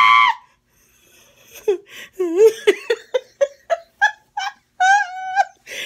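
A woman laughing: a quick run of short giggling bursts, several a second, starting about a second and a half in after a brief pause and going on to the end. The tail of a long high cry ends right at the start.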